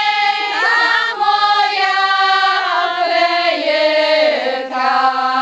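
A small group of voices singing a Goral folk song in harmony, loud and open-throated, in long held notes phrase by phrase.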